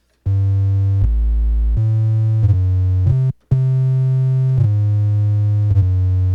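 Synth bass from Phase Plant's default sine-wave wavetable, lightly saturated by a saturator at 20% mix, playing a line of held notes that step between pitches, with a brief break about three seconds in.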